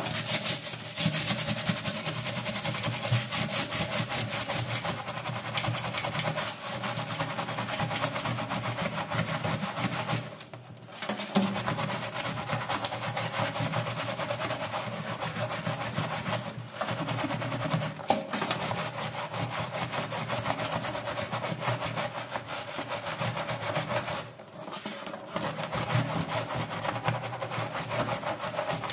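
Brush scrubbing a soapy plastic mesh air-conditioner filter in a stainless steel sink with rapid back-and-forth strokes, stopping briefly twice.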